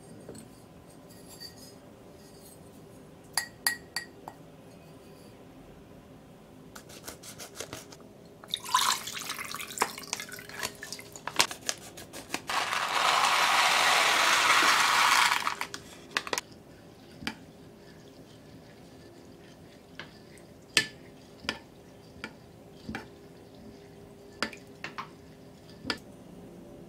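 Uncooked rice poured from a plastic bag into a glazed ceramic kamameshi pot: a dense, steady hiss of grains lasting about three seconds, the loudest sound here. Before it, liquid broth and beef are poured into the pot with a wet pattering. Light clicks and clinks come from handling the pot and packets.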